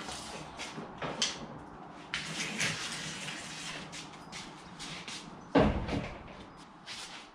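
A jet ski hull being pushed and slid across the boards of a rolling cart, scraping with scattered knocks. A heavy thud comes about five and a half seconds in.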